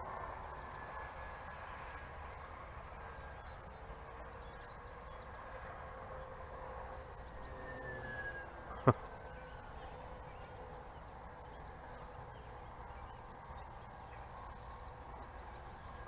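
Electric motor and propeller of an RC flying wing whining in flight: a steady high tone that shifts in pitch now and then as the throttle changes. A single sharp click about nine seconds in.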